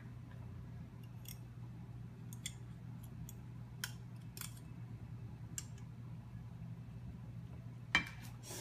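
Scattered light clicks and taps of a fork and a plastic serving spoon against a ceramic bowl and plate as spaghetti is lifted and served, the loudest click near the end. A steady low hum runs underneath.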